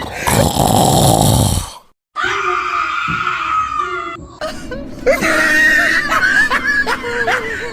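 A loud, rasping, exaggerated snore that cuts off abruptly about two seconds in. After a brief silence, a high-pitched voice wails and squeals with sliding pitch.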